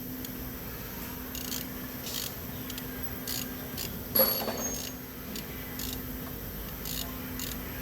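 Light metallic clicks of hand tools and parts being handled, with one sharper metal clink that rings briefly about four seconds in, over a steady low hum.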